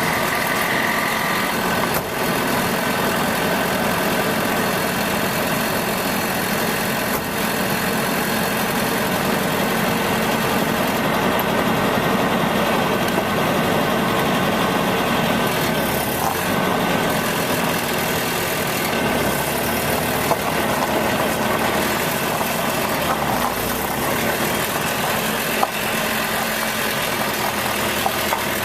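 Nissan pickup truck running, heard from underneath the truck: a steady dense mechanical and road-type noise with a few short sharp clicks. It is the unexplained noise the owner is trying to trace.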